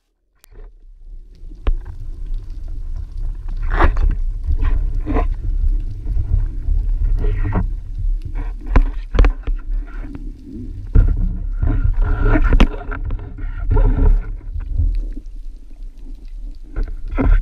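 Underwater water noise on a speargun-mounted action camera: a steady low rumble of water moving past as the spearfisherman swims, with scattered sharp knocks throughout.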